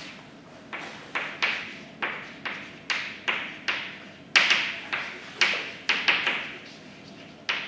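Chalk tapping against a blackboard while words are written, a run of sharp, uneven taps about two a second.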